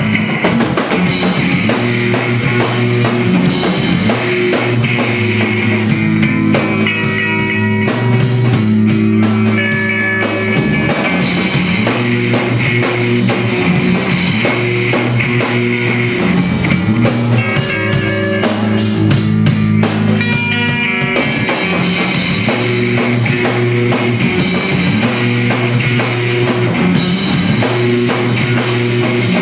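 A live rock band of electric guitar, bass guitar and drum kit playing loud, with dense, steady drumming under sustained guitar notes; no singing.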